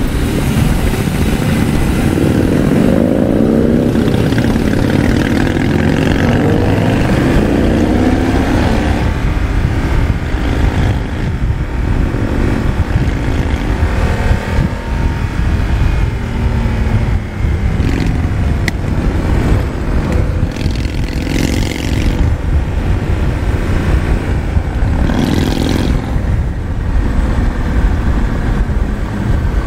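Motorcycle engine accelerating hard in the first several seconds, its pitch climbing, then running on at speed with shorter pulls of the throttle, over a steady rush of wind and road noise.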